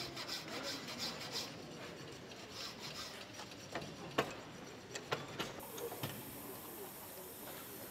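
Hand file working a machined metal part in a bench vise, in regular strokes at about three a second that fade out after the first couple of seconds, followed by a few sharp metallic clicks, the loudest about four seconds in. A faint steady hiss comes in past the middle.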